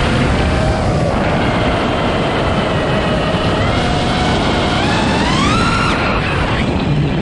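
iFlight Nazgul5 V2 5-inch FPV quadcopter's motors and propellers whining over a constant rush of noise. About five seconds in, the pitch climbs steeply as the throttle is punched, then drops away sharply near the end.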